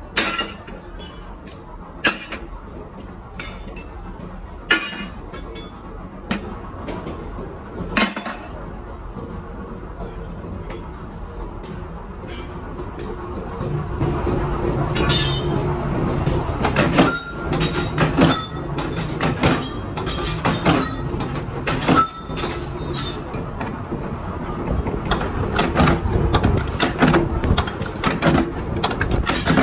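Workshop hand work: scattered sharp metal clicks and knocks, turning about halfway through into denser clattering over a low machine hum.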